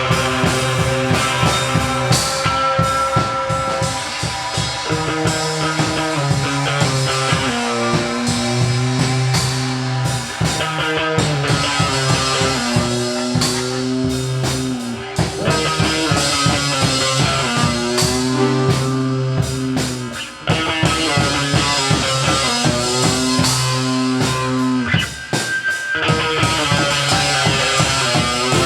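Rock music played on guitar and drum kit, with held notes over a steady drum beat and a brief break about twenty seconds in.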